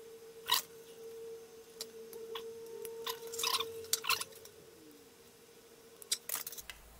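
Small metal clicks and scrapes of a soldering iron tip and a screwdriver against a circuit board as a RAM chip is heated and pried loose. One sharp click comes about half a second in, a cluster of scrapes follows around three to four seconds, and a few more clicks come near the end, over a faint steady tone.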